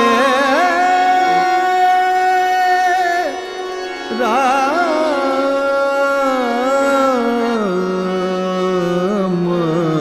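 Hindustani classical thumri: a male voice sings long, held, ornamented notes without words over harmonium accompaniment. The line breaks off briefly about three seconds in, then starts a new phrase that glides and wavers between notes.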